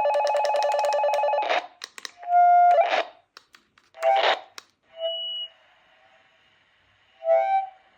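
Electronic beeping tones in separate bursts. A fast pulsing run of beeps lasts about a second and a half, followed by shorter bursts and a brief steady high tone, then a short warbling burst near the end.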